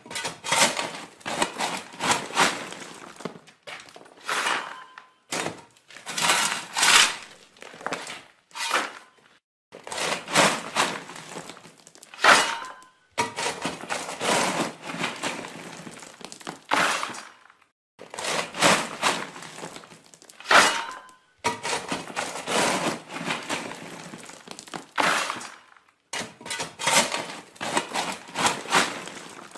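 Digging into earth: repeated strokes, each a burst of scraping noise, with short pauses between them.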